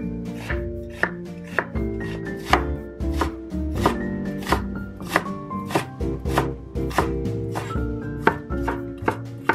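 Chinese cleaver chopping onion and slicing garlic on a bamboo cutting board: sharp knocks of the blade on the board, about two a second, over light background music.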